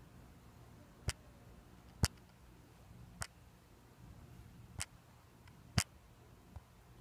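A series of sharp, short clicks at uneven intervals of about a second, five strong ones and a fainter one near the end, over a faint background hiss.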